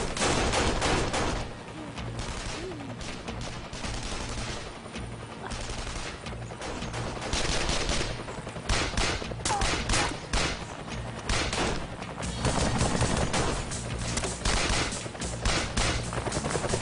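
Dense gunfire: many rapid shots from pistols and automatic rifles in overlapping volleys, with a few brief lulls.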